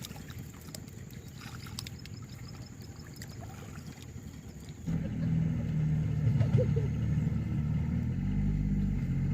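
Low rumble with scattered clicks and a faint steady high whine. About five seconds in, a louder small engine cuts in and runs with a low, steady pitched hum.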